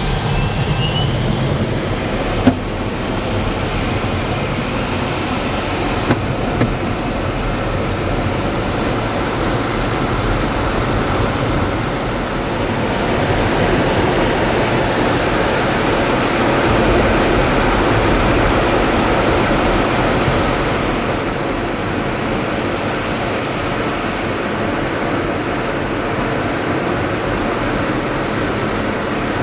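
Steady, loud rushing of air and jet engine noise inside the cockpit of a MiG-29UB in aerobatic flight, swelling a little midway. A few short clicks sound in the first several seconds.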